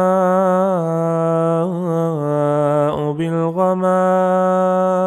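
A single voice chanting Quranic recitation (tajweed), holding long drawn-out melodic notes with slow ornamental turns. There is a brief break about three seconds in before the next long note.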